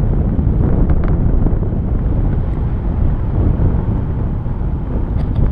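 Airflow buffeting the microphone of a paraglider pilot's camera in flight, a loud, steady, low rumbling wind noise.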